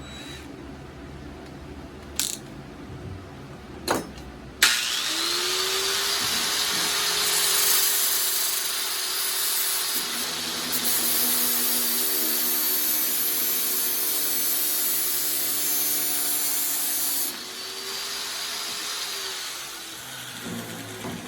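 A handheld electric power tool starts up with a rising whine, then cuts into stainless steel tube or rod for about ten seconds with a hissing grind. It is then switched off and winds down. A couple of knocks come before it starts.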